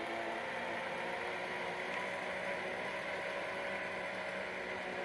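Electric lantern-roof blind's motor running with a steady whir and a few steady hum tones.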